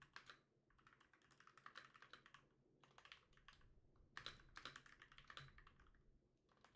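Faint computer keyboard typing: keystrokes come in short runs with pauses between them, and the longest run is in the second half.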